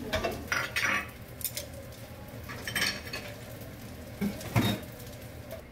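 Cooking utensils clinking and scraping against a frying pan and pot: several separate clatters, the loudest about four and a half seconds in.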